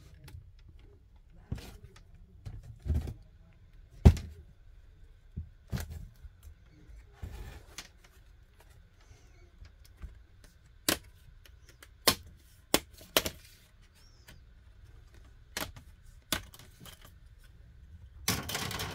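Scattered sharp clicks and knocks from the plastic case of a Lenovo IdeaPad 330 laptop being handled and taken apart at the lid and hinge, with the loudest knock about four seconds in and a short scraping rustle near the end.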